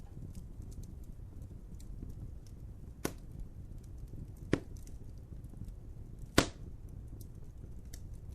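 Wood fire crackling in a fireplace: a low steady rumble of burning with faint small crackles, and three sharp pops a second or two apart, the last the loudest.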